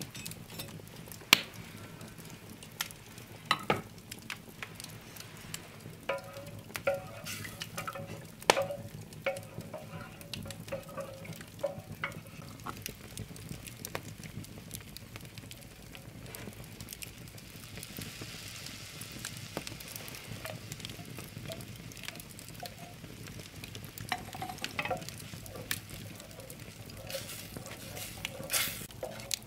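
Butter sizzling in a metal pail over an open wood fire, with sharp crackles and pops now and then. Molasses warming in the pail is stirred with a wooden spoon near the end.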